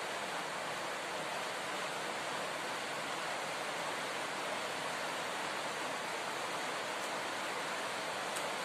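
A steady, even hiss with no breaks, clicks or chewing sounds standing out above it.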